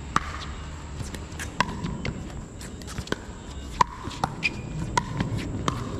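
Pickleball paddles hitting a plastic pickleball during a doubles rally: about five sharp pops with a short ring, roughly one every second or two.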